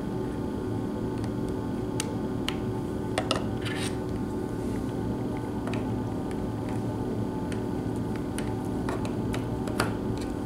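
Small sharp clicks and taps of a USB cable's plug being handled and pushed into a mobile hotspot and a USB power adapter, a few scattered clicks, over a steady room hum.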